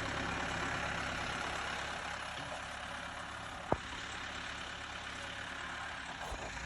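Backhoe's diesel engine idling steadily, with one short sharp click a little past halfway.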